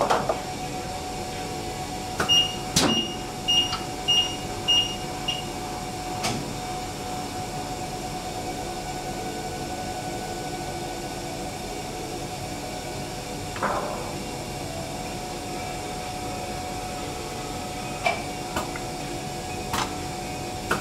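Heidelberg Speedmaster offset press during a plate change: a steady machine hum with a held mid tone, and about two seconds in a run of six short, evenly spaced high electronic beeps, the press's warning signal. Sharp metal clicks and knocks from the plate and the guard being handled come now and then, loudest about three seconds in.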